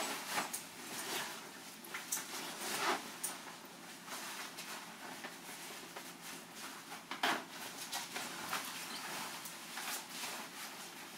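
Nylon shell and padded lining of an MA-1 flight jacket rustling and swishing as it is handled, turned inside out and pulled on. There are several sharper swishes, the loudest about seven seconds in.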